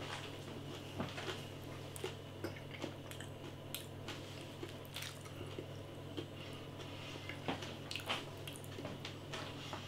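A person chewing a mouthful of roast potato: faint, irregular chewing clicks over a steady low hum.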